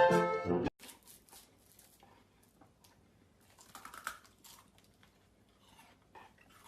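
Bowed-string music stops suddenly less than a second in. After it come only faint, scattered light clicks and soft rustles.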